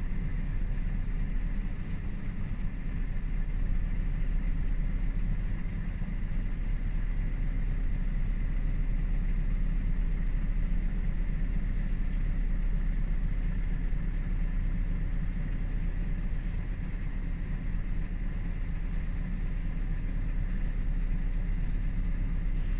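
Engine of a vehicle towing a stuck van out on a strap, running steadily under load: a steady low rumble inside the cab, with a faint steady high whine.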